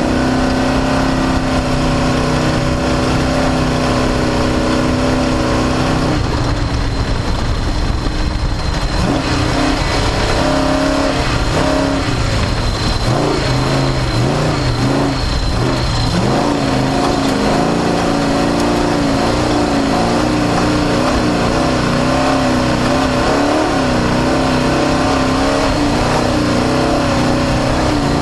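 Off-road desert race car engine running hard, recorded onboard over a constant rush of road and wind noise. The engine note holds steady for several seconds, wavers and dips, then rises and falls repeatedly as the throttle works over rough, square-edged bumps, before settling into a steady pull again.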